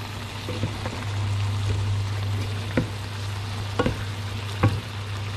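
Chicken and vegetable soup simmering in a frying pan over a steady low hum, while a wooden spatula stirs it, knocking against the pan three times in the second half.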